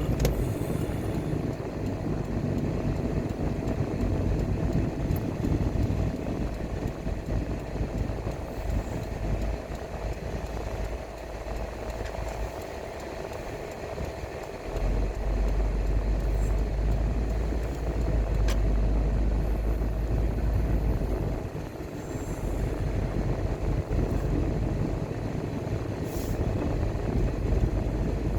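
Car driving on a road: a steady low rumble of engine and tyre noise with a faint hum, easing off twice for a few seconds.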